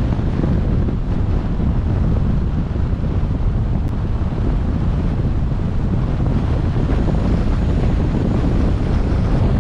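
Steady, low wind rumble on the microphone of a camera mounted on a moving car, mixed with road noise.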